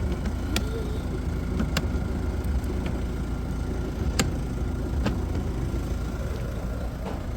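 A car running with a steady low rumble, with a few sharp clicks or knocks over it.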